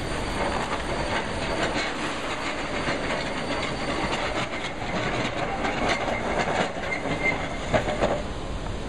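Construction-site work: irregular metallic clanking and knocking over a steady background din, with a brief squeal about seven seconds in.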